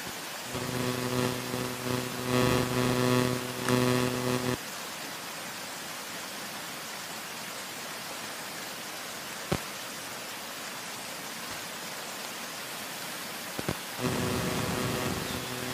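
Steady rushing hiss of a small clear forest stream. A low droning hum joins it from about half a second to four and a half seconds in and again near the end, and a single sharp click sounds about nine and a half seconds in.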